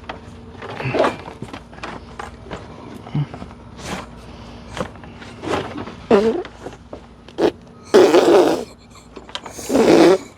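Scattered clicks and knocks of hands and tools working the flexible plastic fan shroud into place around the engine fan. Near the end there are two louder rasping noises, each lasting about half a second.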